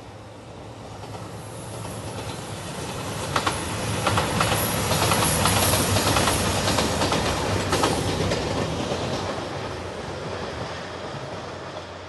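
JR Shikoku 2700 series diesel limited express train passing by: its engines drone and its wheels click over the rail joints. It swells to its loudest in the middle, then fades away.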